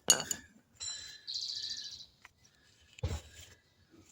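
A sharp clank of parts or tools being handled, then a small bird trilling for about a second, and a duller knock about three seconds in.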